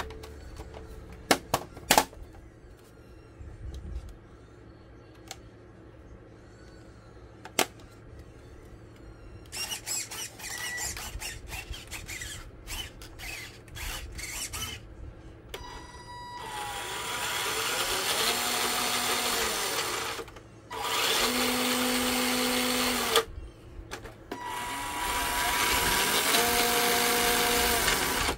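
Clicks and knocks of a plastic RC car body being handled, then the 1/6 scale FMS Jimny LJ1 crawler's electric motor and drivetrain running with its wheels off the ground: a whirring whine that rises, holds and falls in three throttle bursts over the last third.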